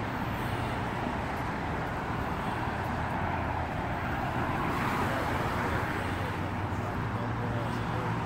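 Steady roadway traffic noise from passing cars, swelling a little about five seconds in as a car goes by.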